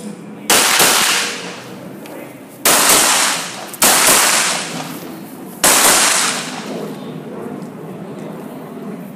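Handgun shots fired during a practical shooting stage: four loud, sharp reports spaced one to two seconds apart, each ringing out for about a second before the next.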